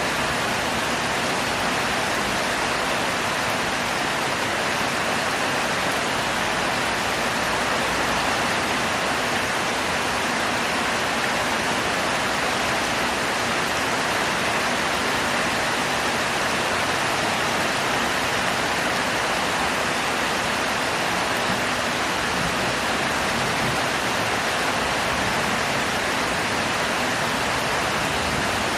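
Heavy rain falling in a steady, dense downpour with no let-up.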